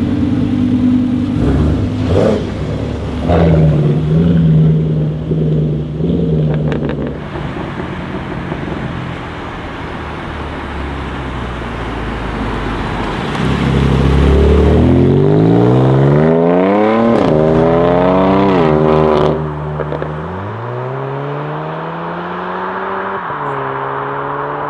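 BMW M4 F82's twin-turbo straight-six through a full Akrapovic titanium exhaust: a few short revs with sharp crackles in the first seconds, then a steady running note. About halfway in it accelerates hard, the pitch climbing through one gearshift, then cuts off abruptly on lifting. A lower note follows, rising and then holding steady.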